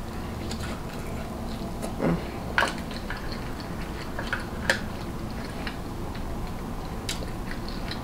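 A person chewing and biting food close to the microphone, with several short sharp clicks scattered through, over a steady low hum.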